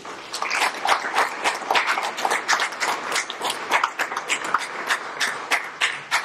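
Audience applause: a steady mass of hand claps that begins at once and stops quickly near the end.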